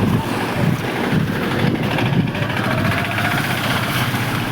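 Heavy rain pouring steadily, with strong wind gusting and buffeting the microphone.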